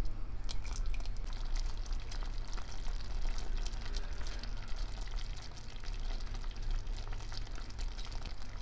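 Apple jam simmering in a pot: the thick sugar syrup bubbles with many small, irregular pops and crackles, over a low steady hum.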